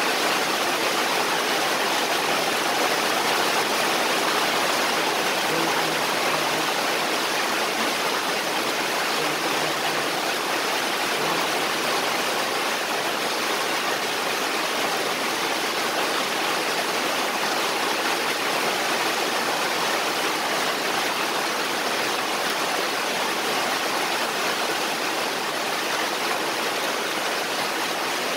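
Steady rain falling, an even hiss that doesn't let up.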